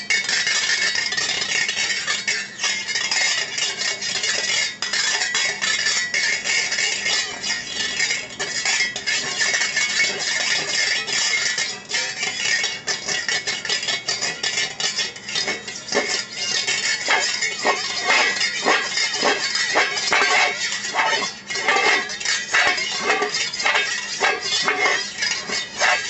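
Wire balloon whisk scraped and rattled against a metal pot lid, a dense continuous metallic scratching and jingling of the wires. From about two-thirds of the way through, quick repeated clinks and taps of the whisk on the lid join in, several a second.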